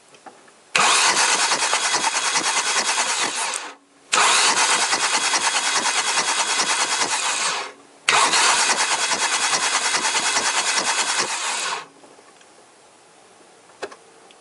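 Toyota Corolla VVT-i four-cylinder engine cranked on its starter with all spark plugs out, in three runs of about three and a half seconds each with short pauses between. The starter spins the engine fast and even, air rushes in and out of the open plug holes, and the engine never fires. The cranking is being done to build up oil pressure in the freshly installed engine.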